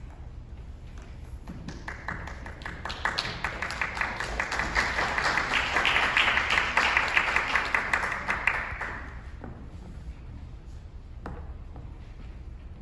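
Audience applauding, swelling from about two seconds in and dying away after several seconds, followed by a single light knock near the end.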